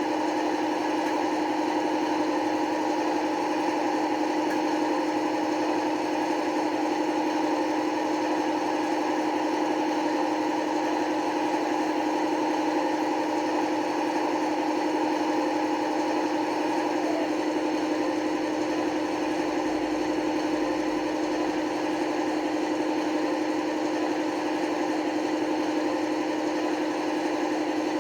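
Digital sound decoder in an Accurascale Class 55 Deltic model locomotive playing its Napier Deltic diesel engine running sound steadily through the model's small speaker. The tone shifts slightly a little after halfway.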